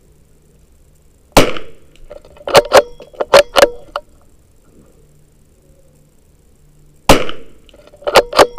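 Savage B22 Precision bolt-action .22 LR rifle firing RWS Target Rifle rounds: a sharp shot about a second and a half in, followed by four quick metallic clacks of the bolt being worked. A second shot comes near the end, with the bolt clacking again right after it.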